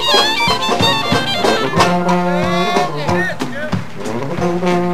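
Traditional New Orleans-style jazz band playing live, with clarinet and brass lines over banjo, drums and a sousaphone bass. Some notes slide in pitch near the middle.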